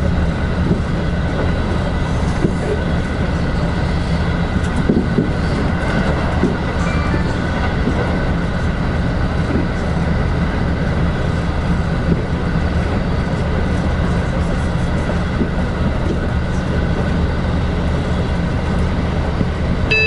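Passenger train running at speed, heard from inside the car: a steady rumble of wheels on the rails with a faint, constant whine.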